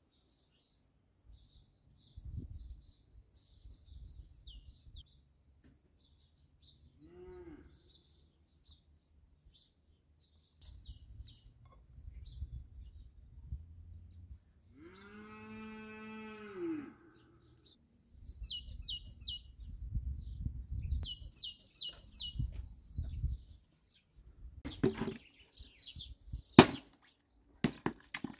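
A cow moos twice, a short moo and then a longer one of about two seconds about halfway through, over steady birdsong and bouts of low rumbling noise. Near the end an axe strikes wood with a sharp chop.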